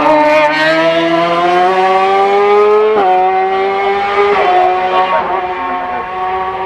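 Racing car engine at full throttle on a hillclimb, rising in pitch for about three seconds, then a gear change and a steadier note as it pulls on.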